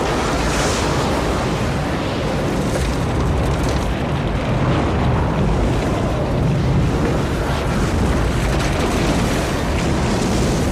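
Tornado sound effect: loud, steady rushing wind over a deep, continuous rumble.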